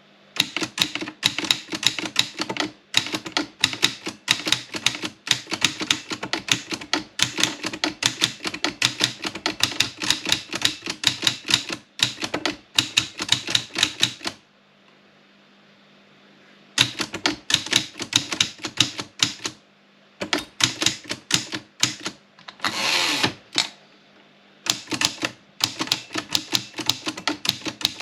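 Olympia Plana manual typewriter being typed on in quick runs of sharp key strikes, about five a second, with a pause of about two seconds midway and shorter breaks. One longer scraping sound of under a second comes about two-thirds of the way through.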